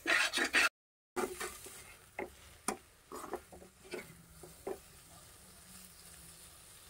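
Metal spoon scraping and clinking against a metal kadai while stirring a thick onion-tomato masala frying in oil, with a faint sizzle underneath. A brief dropout comes under a second in. The scrapes and taps are scattered and thin out after about five seconds, leaving only the low sizzle.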